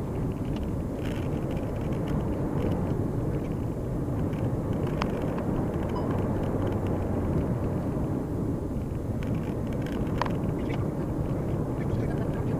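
A 2011 VW Touran 1.2 TSI driving along, heard from inside the cabin: a steady low rumble of tyres and engine. Two faint short clicks come about five and ten seconds in.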